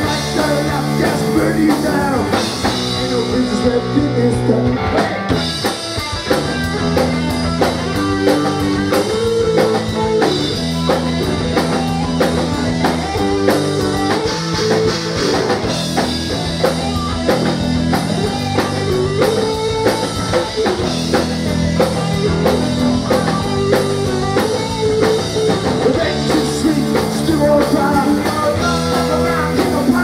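Live rock band playing loudly: electric guitar, bass guitar and drum kit, with the drums keeping a steady beat.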